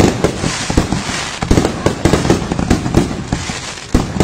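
Aerial fireworks bursting overhead in quick succession: a dense run of bangs and crackling, easing off briefly before a fresh volley of bangs near the end.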